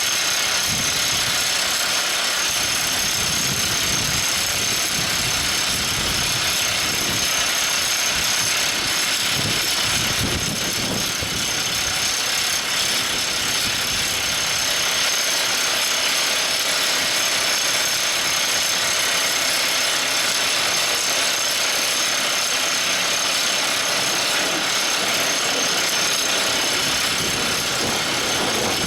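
Everdigm ECD45E top hammer drill rig running: a steady, dense machine noise with several high steady whining tones over it.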